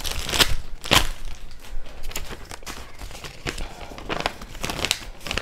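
Paper and plastic packaging rustling and crinkling as it is handled and unfolded, with several sharp crackles.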